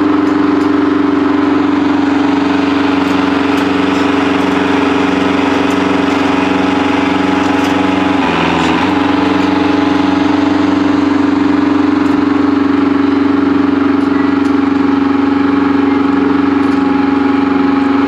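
Heavy equipment engine running steadily at a constant speed with a strong, even hum; the pitch wavers and dips briefly about eight seconds in, then settles back.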